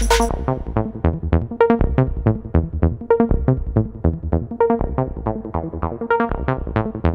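Electronic background music: a steady beat under a quick run of evenly spaced notes. A hissy high layer drops out just after the start.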